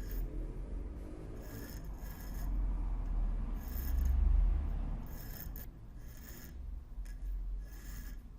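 Repeated rasping strokes of hand abrasion on metal, roughly one stroke a second and irregular, over a low rumble that swells about halfway through.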